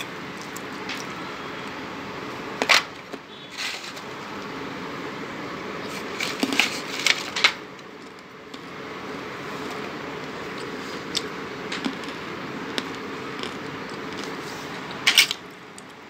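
Hard dried edible clay being broken and bitten: short sharp crunches, one about three seconds in, a quick cluster of several a few seconds later, and a loud one near the end, over a steady background hum.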